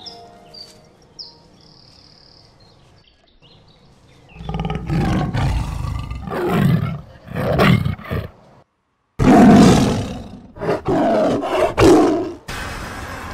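Loud animal roars, one after another, starting about four seconds in, with a short break about nine seconds in.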